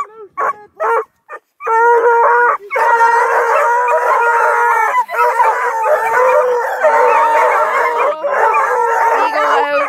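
A pen full of young coonhounds and beagle-mix hounds baying and howling together: a few short barks in the first second or so, then a continuous chorus of many overlapping drawn-out howls.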